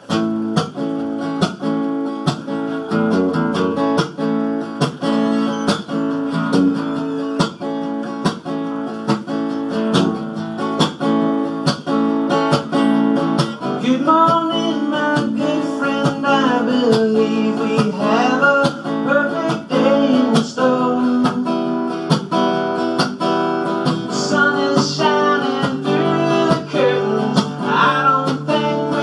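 Acoustic guitar strummed in a steady rhythm, opening a song played live; a singing voice comes in about halfway through over the guitar.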